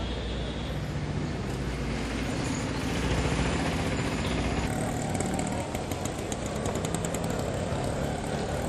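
A car engine running amid steady street noise, with a low rumble throughout and a run of fast faint ticking in the second half.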